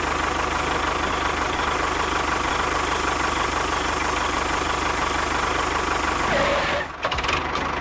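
Tractor engine running steadily with a fast, low knocking beat. It cuts off abruptly about seven seconds in.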